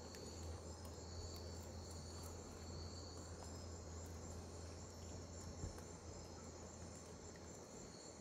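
Insects chirping steadily with a high-pitched, pulsing trill, over a low steady hum.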